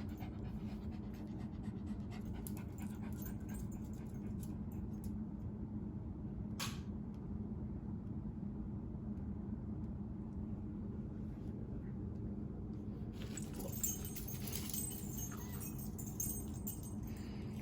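A dog panting steadily over a low steady hum, with one sharp click about six and a half seconds in and a stretch of higher hiss near the end.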